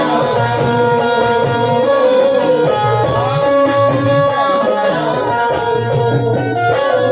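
Qawwali music: a melody line with sliding notes played over a steady tabla rhythm.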